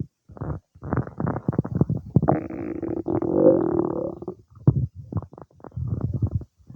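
Human stomach gurgling as it digests cake: quick bubbling gurgles throughout, with one long, pitched rumble starting about two seconds in and lasting about two seconds.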